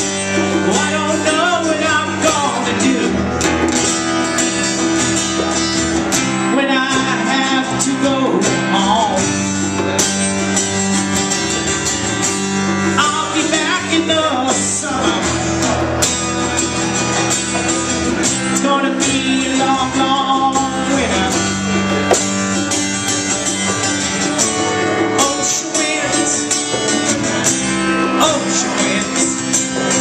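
A live acoustic band playing: strummed acoustic guitar over a plucked upright bass and hand drums, with a steady beat.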